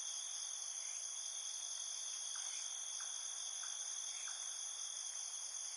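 A steady chorus of insects, crickets trilling without a break, with faint short chirps now and then.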